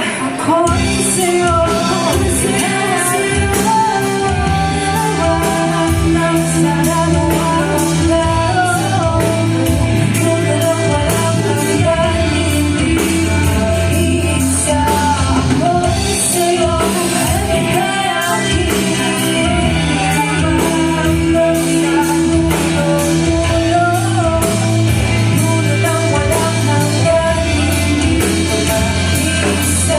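Live band playing a rock song: guitar, bass and drums, with singing.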